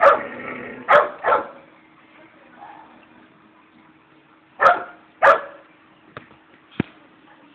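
Dog barking in short barks: three in the first second and a half, then two more about five seconds in, followed by a few faint sharp clicks near the end.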